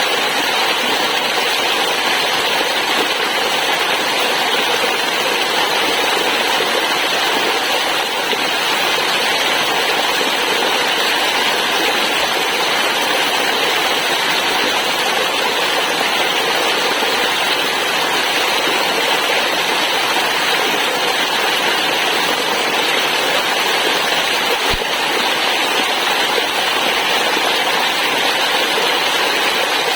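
Waterfall rushing, a steady dense hiss of falling water without let-up.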